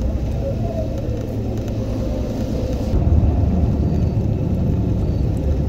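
Vehicle driving on a dirt road: a steady low rumble of engine and tyres, a little louder after about three seconds.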